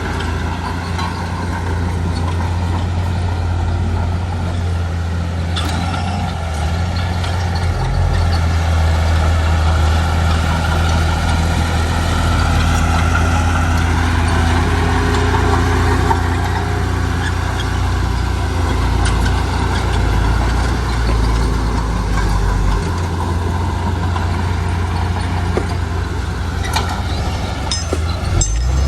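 Heavy diesel engine of earthmoving machinery running steadily, its low note shifting a few times as the load or throttle changes.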